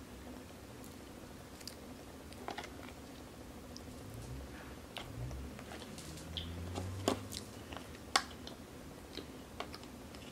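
Quiet eating sounds: chewing, with scattered soft clicks and taps as a plastic fork picks at crab shell and food.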